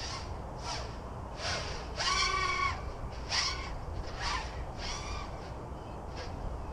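Crows cawing repeatedly, a short harsh call about every second, over a steady low wind rumble on the microphone.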